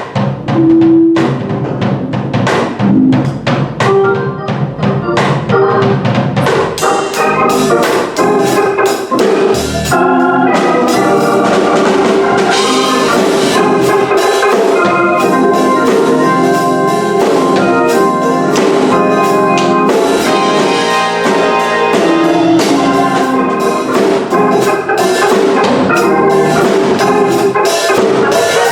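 Offering music: gospel-style church music with a drum kit and organ. It grows fuller and steadier about ten seconds in.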